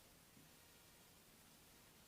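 Near silence: faint room tone, with one faint soft tap about a third of a second in.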